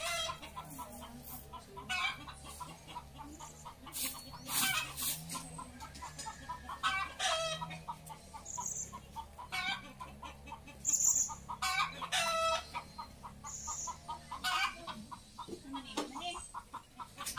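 Chickens clucking and calling, with short calls repeating at irregular intervals.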